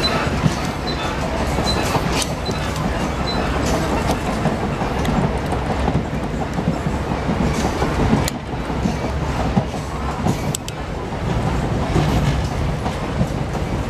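Running noise of a moving passenger train heard from inside the compartment: a steady rumble with a couple of sharp clicks near the middle.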